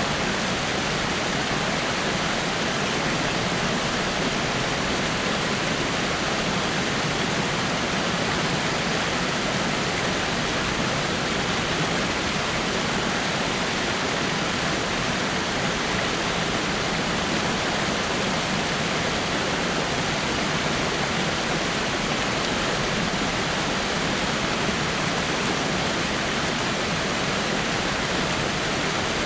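Small rock waterfall: water falling over rocks in a steady, unbroken rush.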